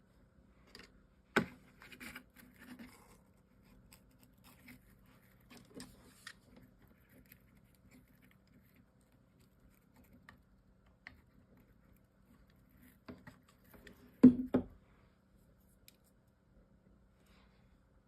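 Chipboard box pieces being handled and pressed together on a tabletop: scattered light clicks, taps and scraping. A sharp click comes early, and a short cluster of knocks near the end is the loudest.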